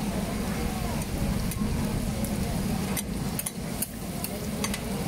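Busy night-market crowd noise: a steady murmur of voices over a low hum, with a few sharp clicks between about three and five seconds in.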